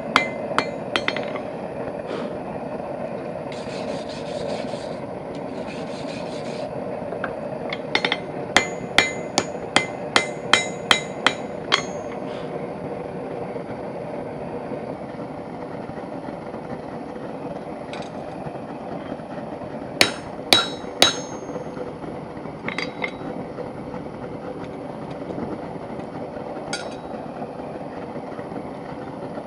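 Hand hammer striking a steel hinge bar on an anvil while beveling its edges: a quick run of about a dozen blows a little after the start, three more later on, and a few lighter taps, over a steady background drone.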